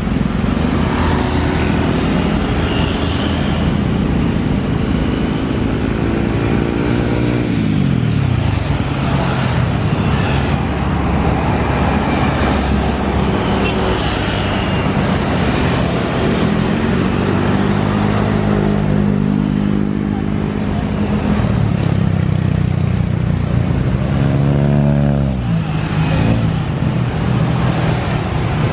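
Road traffic: steady engine noise with motorcycles and cars going by, their engine pitch rising and falling as each one passes, three times over.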